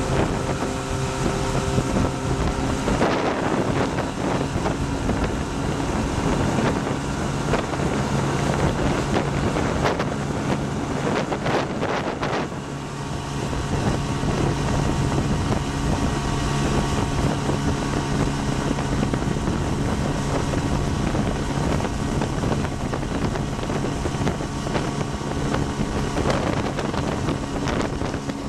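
Tiller-steered outboard motor running steadily at speed, pushing a small aluminium fishing boat, with water rushing past and wind buffeting the microphone.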